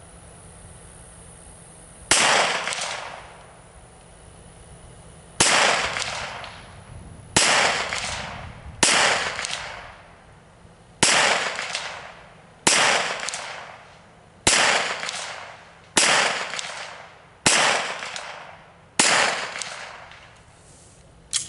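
Handgun firing ten single shots, irregularly paced about one and a half to three seconds apart. Each shot is a sharp crack followed by an echo that dies away over about a second.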